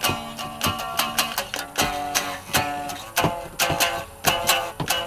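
A small acoustic stringed instrument strummed in chords, about three strums a second in a steady rhythm.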